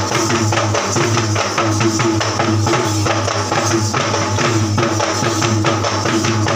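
Fast hand drumming on Sri Lankan low-country yak bera barrel drums: a dense, steady beat of about five or six strokes a second, the drum music of a thovil ritual dance.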